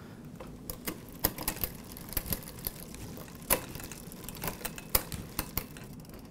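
Irregular sharp clicks of a mountain bike's rear gears being shifted up through the range: Shimano Revoshift twist-shifter indexing clicks and the chain moving across the cassette cogs as the cranks are turned.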